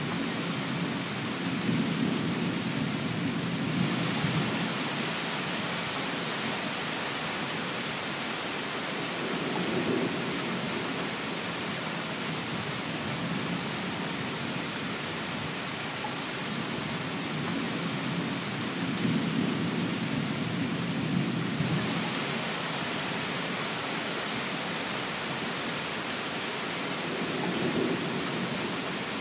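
Steady rain with low rolls of thunder swelling up four times, each lasting a few seconds.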